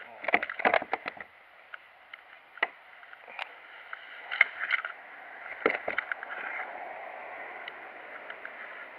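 Scattered knocks and clicks of handling in a plastic kayak, with a cluster of them in the first second and a few more spread over the next five seconds. A steady rushing, water-like sound fills the last few seconds.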